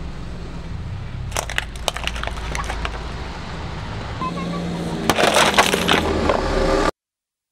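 Plastic toy car body cracking and snapping as a car tyre rolls over and crushes it, over the low hum of the car's engine. There are a few sharp cracks about a second and a half in and a dense run of crackling about five seconds in. The sound cuts off suddenly near the end.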